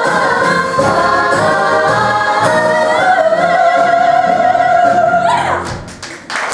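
Musical theatre cast singing with accompaniment, ending on a long held note about three seconds in that cuts off a little after five seconds; applause begins near the end.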